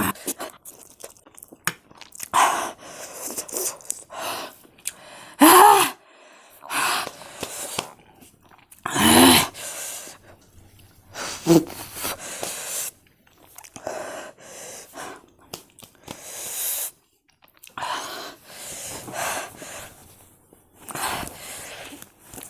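A person eating very spicy Korean noodles, chewing in irregular bursts close to the microphone, with sharp gasping breaths from the chilli heat. A few of the gasps are voiced.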